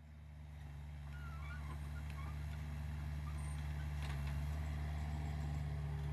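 Hitachi mini excavator's diesel engine running steadily, fading in over the first second, with a faint clank about four seconds in.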